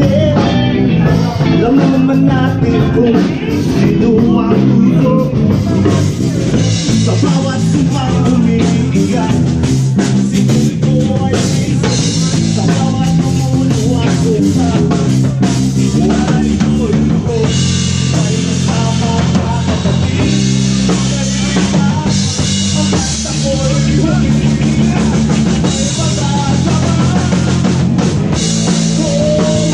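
Live band jamming: a drum kit, an electric bass and an electric guitar playing together.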